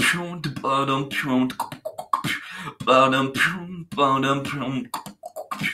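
Beatboxing: sharp mouth-made snare and hi-hat clicks mixed with hummed, pitched bass tones that bend now and then, in a quick rhythm, stopping just at the end.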